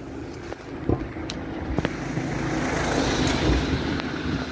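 A van driving past close by, its engine and tyre noise swelling to a peak about three seconds in and then easing off. Two short sharp knocks come about one and two seconds in.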